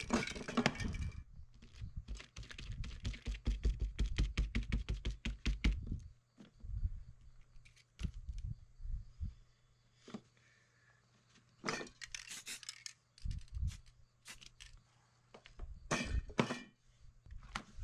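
Flames on a freshly sprayed painting hiss and die out about a second in. Then an even, rapid run of clicking knocks lasts several seconds, about six a second. Scattered taps, clicks and scrapes follow as paper masks are handled on the board.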